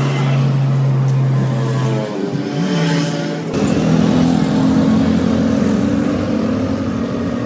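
Engines of passing road traffic, motorcycles among them, running steadily. The engine sound changes abruptly about three and a half seconds in.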